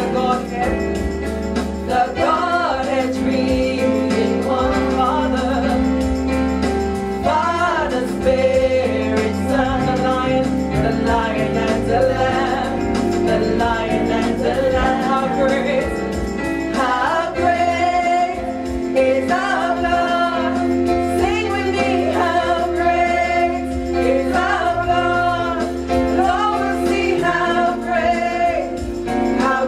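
A woman singing a slow gospel worship song into a microphone, over instrumental accompaniment with sustained chords and a bass line.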